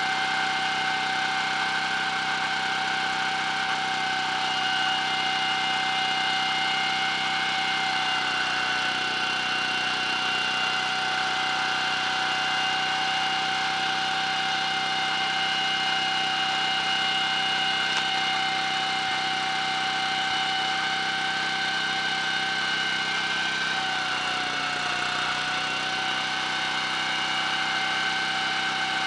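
Small Honda stationary petrol engine running steadily, spinning a classic motorcycle's front wheel fast while the brake shoes, coated with fine grinding paste, lap the high spot of a slightly out-of-round brake drum to cure brake judder. A steady high whine runs over the engine, dipping slightly in pitch for a moment about three-quarters of the way through.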